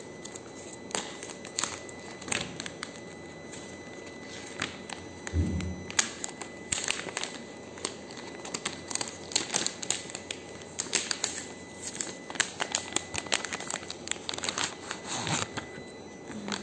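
Plastic retail packaging of a phone case crinkling and crackling as it is opened and the case is pulled out: irregular clicks and rustles, sparse at first and busier from about six seconds in.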